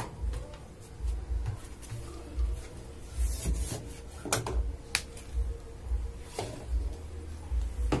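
Low thumps and rustling from garden and drain hoses being picked up and moved, with a couple of sharp clicks about halfway through.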